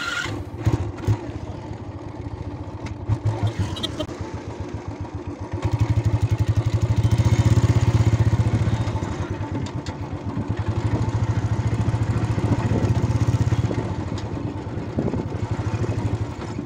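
Motorcycle engine running as the bike is ridden, its pulses getting louder from about six seconds in as it picks up, then easing back a couple of seconds before the end.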